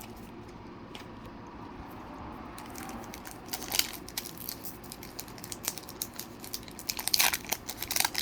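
Faint room tone, then from about three seconds in, irregular crinkling and rustling of a foil trading-card booster pack and its cards being handled, with a burst of crackling near the end.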